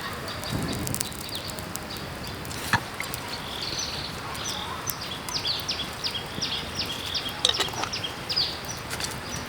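Wild bird singing a quick series of short, downward-sweeping chirps, about three a second, over the steady rush of a running creek. A single sharp click sounds about a third of the way in.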